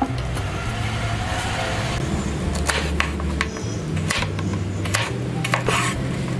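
Kitchen knife slicing boiled, peeled taro root on a wooden chopping board: a few irregular sharp taps as the blade goes through and hits the board, starting a little before halfway. Background music with steady low held notes plays throughout.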